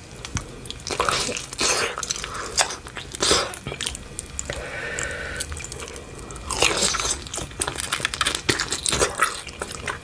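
Close-miked biting and chewing of sauce-coated fried chicken: the breaded crust crunches in clusters of sharp crackles.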